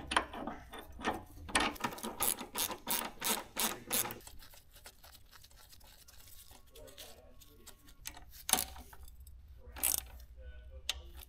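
Hand ratchet clicking as bolts are run in on a motorcycle's rear shock mounting: a quick run of clicks for about the first four seconds, then a few single clicks later on.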